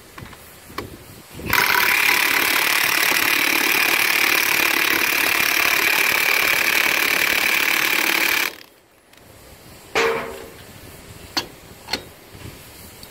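Cordless impact driver running on the center nut of a rail tank car manway's strongback for about seven seconds, tightening it down to close the hatch, then stopping abruptly. A metal clank follows, then a couple of light clicks.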